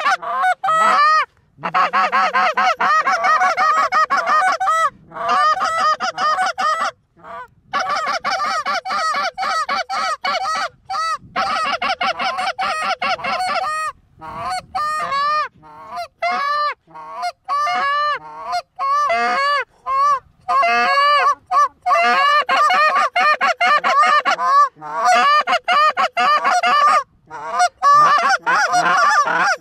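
Canada goose honks and clucks, loud and rapid, several calls a second, nearly continuous with brief breaks, thinning out for a stretch about halfway through.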